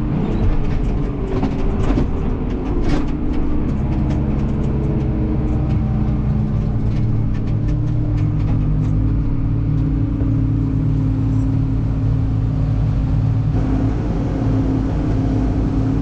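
Tractor and self-propelled forage harvester running steadily under load in the corn, a continuous engine drone heard from inside the tractor cab, with scattered light clicks and rattles in the first few seconds.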